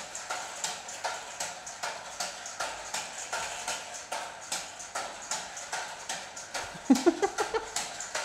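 Homemade air-powered car's syringe-piston engine with slider valves, running on compressed air pumped to 60 PSI and exhausting in a steady chuffing rhythm of about three puffs a second. A short rising squeak comes near the end.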